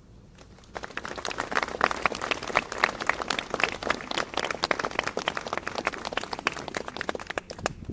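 A small crowd applauding, with some claps very close by. It starts about a second in and stops near the end.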